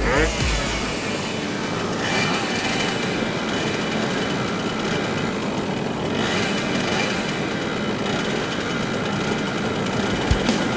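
Many two-stroke moped engines running together, a dense steady buzz with faint high whining tones.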